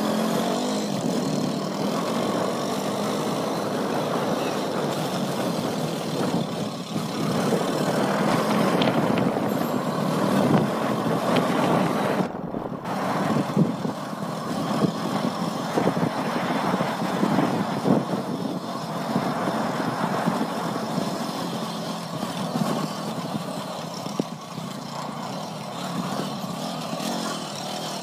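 Motor vehicle driving on the road, heard from on board: a steady mix of engine and road noise.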